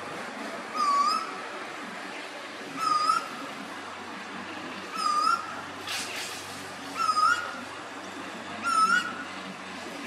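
Male Pacific koel (storm bird) calling: five short upslurred notes about two seconds apart, each a little higher than the last.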